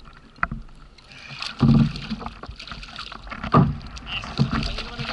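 Water slapping and knocking against a sea kayak's hull, with two heavy knocks about two seconds apart and scattered splashes, as a hooked sierra (snoek) thrashes at the surface beside the kayak.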